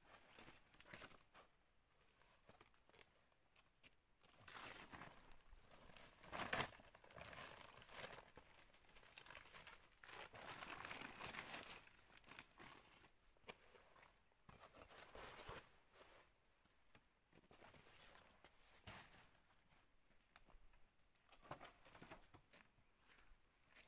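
Faint rustling and crackling of leaves and twigs, with a sharper snap about six and a half seconds in, over a steady high insect chirring.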